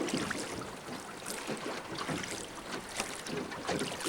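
Steady hiss of moving river water with scattered light clicks and knocks.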